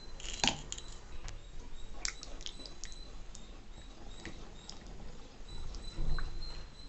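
Spatula stirring thick cornflour batter and sugar syrup in a pan, kept moving without a pause so it does not form lumps: irregular soft wet squelches and clicks of the spatula against the pan. There is a louder knock about half a second in and a louder stretch around six seconds.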